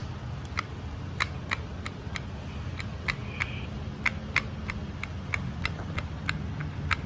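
Sharp metallic clicks, about three a second, from a scooter crankshaft and connecting rod being worked by hand to check for big-end or bearing wear, over a low steady hum.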